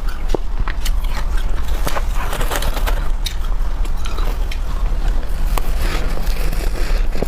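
Close-up crunching of freezer frost as it is bitten and chewed: a dense run of crisp cracks and crackles.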